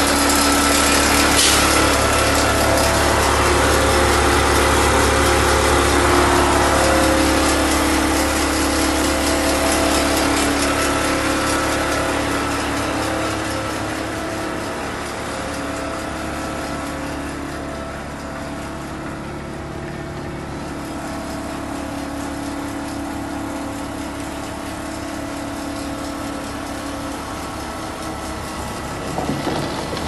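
Renault Kerax 370 DCi truck's six-cylinder diesel engine idling with a steady hum, growing fainter through the middle of the stretch.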